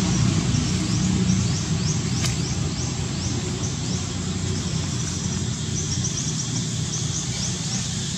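Outdoor ambience: a steady low rumble, with a bird's short, high chirps falling in pitch, repeating in small clusters. A single sharp click about two seconds in.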